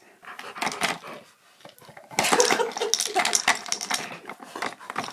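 Plastic tubes of a dog treat puzzle clattering and knocking on their poles as a husky spins them with its muzzle: a few light knocks, then a busy run of clattering from about two seconds in. The tubes are spun too fast for the treat to fall out.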